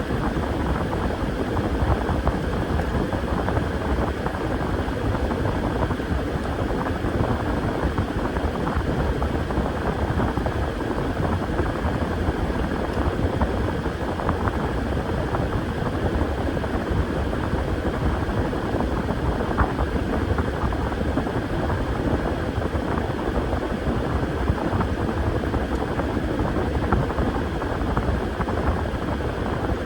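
Washing machine running, a steady mechanical drone with a continuous churning rumble.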